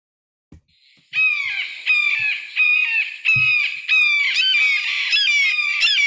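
Red-shouldered hawk calling: a fast series of loud, high, down-slurred calls, about three a second, starting about a second in.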